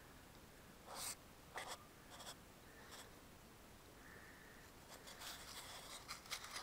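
Near silence with a few faint, brief scratching rustles, which come more often near the end.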